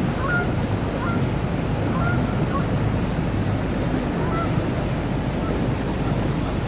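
Motor boat under way: a steady low engine drone mixed with water washing past the hull and wind on the microphone. A few faint short bird calls come through in the first half.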